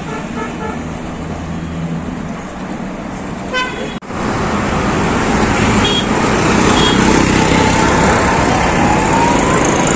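Busy city road traffic, with motorbikes and cars passing and several short horn toots. About four seconds in the noise turns louder and closer, as cars drive right past.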